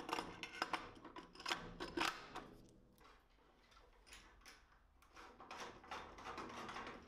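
Small metal clicks and light rattles of a washer and nut being fitted onto a mitre gauge's steel post from underneath, several sharp clicks in the first two seconds, then quieter, with soft scraping of handling near the end.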